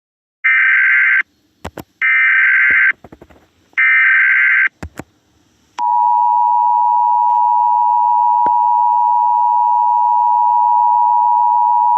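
Emergency Alert System signal: three short, harsh digital header bursts with a few clicks between them, then from about six seconds in the steady two-tone attention signal, held on.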